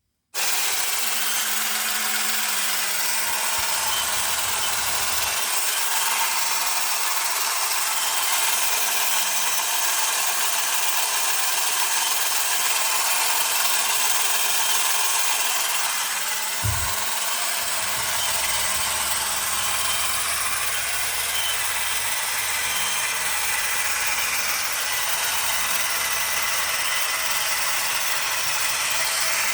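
Small battery-powered electric motor and gear train of a 1968 MSB tin toy bulldozer running steadily with a mechanical whir and rattle, switched on abruptly about half a second in. There is a brief knock a little past halfway.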